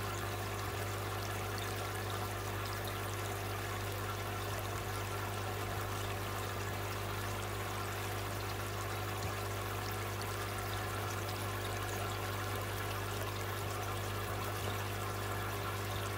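Aquarium water running steadily, a continuous trickling pour into the tank, over a low steady hum.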